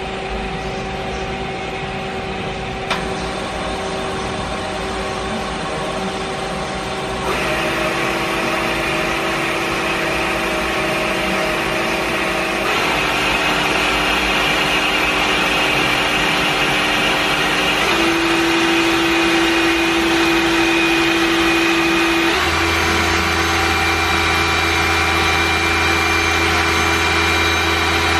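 Nomura NN32YB2 CNC Swiss-type lathe running: a steady mechanical whine over a hiss that steps to a new pitch four times, about every five seconds. A low hum joins near the end.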